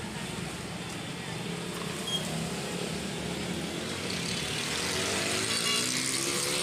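Steady traffic noise, with a vehicle's engine rising in pitch about five seconds in as it speeds up.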